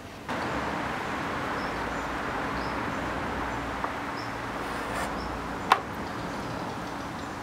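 Steady background hiss with a faint low hum and a few faint bird chirps. About three-quarters of the way through, one sharp tap, as a sculpting knife is set down on a board.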